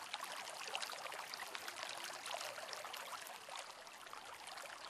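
Faint trickling water ambience: a steady watery hiss dotted with many small droplet ticks.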